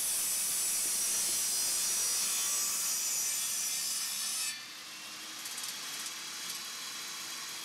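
Benchtop table saw cutting through a 2x8 board as it is fed across the blade, a steady high hiss of sawing. About four and a half seconds in the sound drops abruptly to a quieter running noise.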